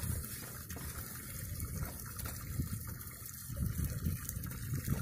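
Water lapping and sloshing against an inflatable dinghy's tube: a steady noisy wash with a few low bumps about three and a half to four and a half seconds in.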